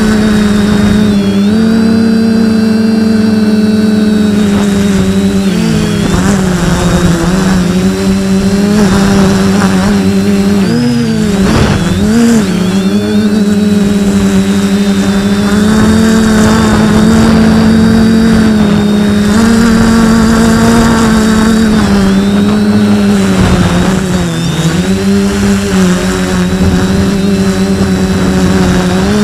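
F450 quadcopter's four brushless motors and propellers running with a loud, steady buzz, heard up close from a camera mounted on the frame. Its pitch wobbles and dips briefly twice, about a third of the way through and again later, as the motors change speed.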